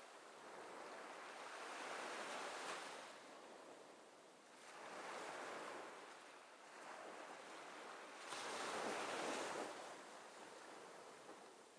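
Waves washing: a rushing hiss that swells and fades three times.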